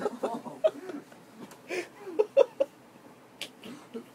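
Short bursts of laughter and chuckling with indistinct voices, coming in brief spurts with gaps between them.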